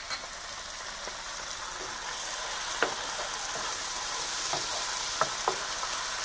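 Tomato passata sizzling steadily as it is poured into a hot sauté pan of butter-sautéed shallots and garlic. A few short light knocks come from a wooden spoon scraping the passata out of a glass container.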